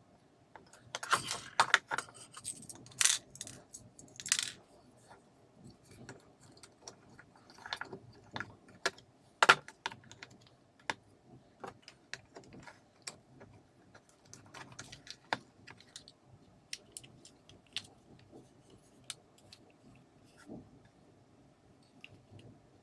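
Irregular clicks, taps and short clattering rattles of small hard parts being handled, a cluster of them in the first few seconds and then scattered single clicks.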